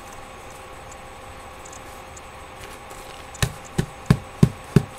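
Five sharp knocks in quick succession, about three a second, starting a little past the middle, over a steady background hum.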